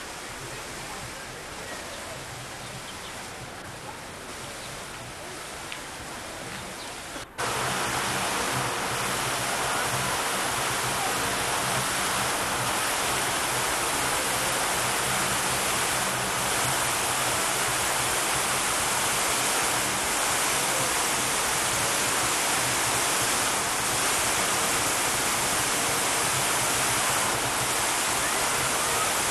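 Fountain jets splashing into their basin, a steady rush of water. It jumps abruptly to much louder about seven seconds in, after a quieter stretch with faint voices.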